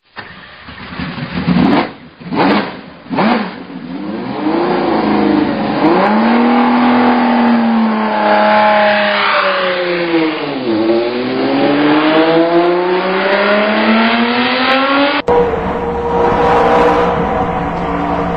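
Racing car engine: a few short revs, then it runs under load with its pitch falling as it slows and rising again as it accelerates about 11 s in. About 15 s in the sound cuts abruptly to a different recording of a racing engine holding a higher, steadier note.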